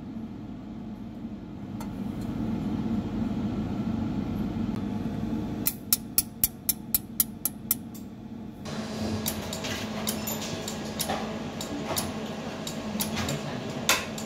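Pulsed jewelry laser welder firing on a gold ring: a run of about eight sharp snaps, roughly four a second, one per laser pulse, over the machine's steady hum. Scattered fainter ticks follow, with one louder snap near the end.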